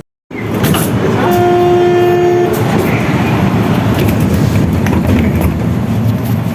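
Mexico City Metro train's door-closing warning buzzer sounds one steady tone for about a second, over the loud rumble of the train.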